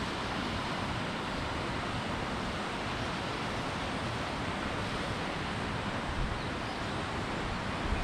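Steady rushing of a mountain river's shallow rapids, an even noise without pauses, with a low wind rumble on the microphone.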